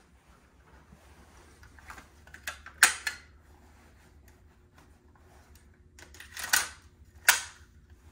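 Sharp plastic clacks from an orange toy pistol being handled: a quick group of three a little before three seconds in, then two more near the end, with faint room hum between.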